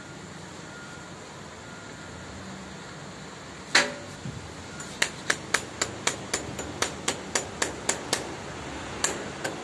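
Hammer striking a fixing on the clip that holds a plastic downpipe to the wall. There is one hard blow, then a quick run of about a dozen lighter taps at roughly four a second, and two more near the end.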